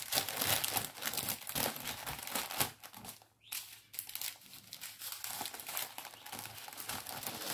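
Crinkling of a diamond painting kit's packaging as it is handled and opened, with a brief pause about three seconds in.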